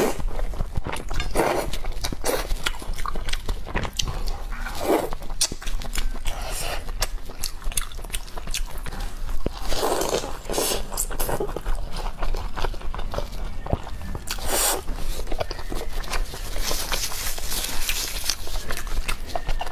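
Close-miked eating sounds: noodles slurped out of spicy broth, then wet chewing and lip smacking with many small clicks. Partway through comes a bite of soup-soaked fried egg.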